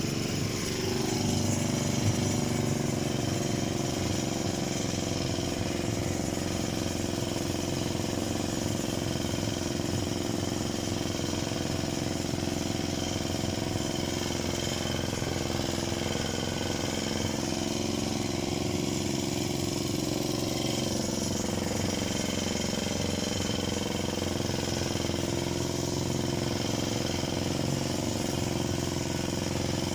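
Parma BP-058 two-stroke petrol chainsaw running steadily. Its pitch falls in the first second, then holds even.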